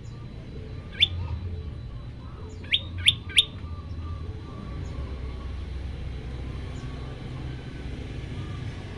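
Common tailorbird calling: one sharp, steeply rising note about a second in, then a quick run of three more about two seconds later. A steady low rumble runs underneath.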